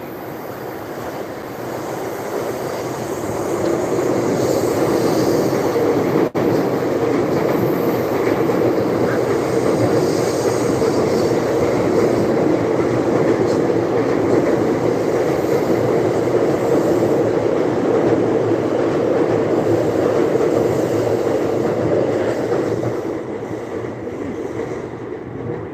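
A train passing close by: a steady rumble of wheels on rails that builds over the first few seconds, holds for about twenty seconds, and fades near the end.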